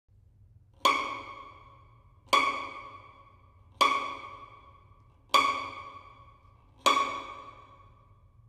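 One high note played five times, evenly about every second and a half, each sharply attacked and ringing away before the next, in sparse contemporary chamber music.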